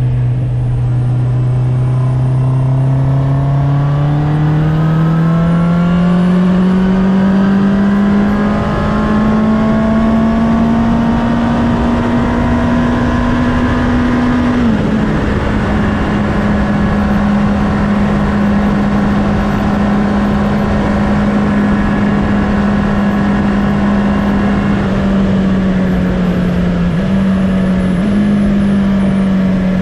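2019 Honda CB650R's inline-four engine heard from onboard, pulling up through the revs steadily for about fifteen seconds, then shifting up a gear and cruising at near-steady revs that ease off slightly near the end. Wind noise runs underneath.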